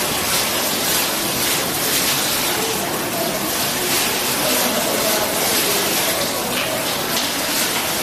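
Falling water from a graphic water curtain's row of nozzles splashing into the basin below: a steady rushing splash.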